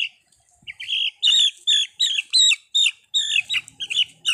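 A young chicken, caught and held in a child's hands, giving loud, rapid distress squawks, about four short high calls a second.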